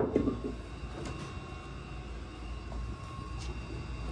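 Steady low rumble with a faint constant hum; a clatter of glass jars dies away in the first half-second, and there are a couple of faint ticks.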